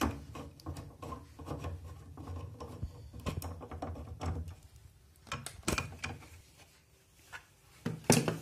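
A screwdriver turning and working loose the bolts that hold wire lugs on an inverter's MOSFET heatsink: small irregular metallic clicks and rubbing, with a louder clack near the end.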